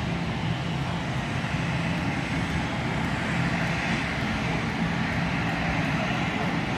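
Airliner engines running, a steady rushing noise over a low hum.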